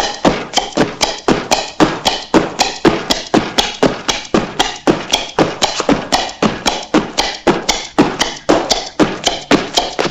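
Old cartoon sound effect: a steady, rapid series of sharp knocks, about four a second, each with a short ring-out.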